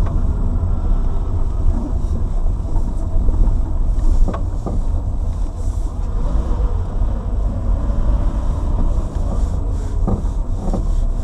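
Cabin noise of a moving Lada Granta: a steady low road and engine rumble. A few short sharp knocks from the suspension cut through it, one about four seconds in and several near the end when the steering is swung side to side. The knocks are the suspension fault that shows up in turns and over bumps.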